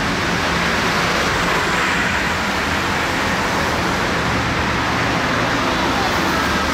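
Steady vehicle noise: a low rumble with a faint hum under a constant hiss, unchanging throughout.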